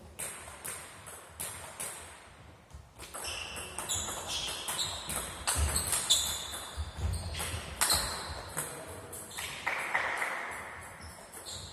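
Table tennis ball and bats: a few single ticks of the ball being bounced before the serve, then a rally of quick sharp clicks as the ball strikes the table and the bats, echoing in a large sports hall.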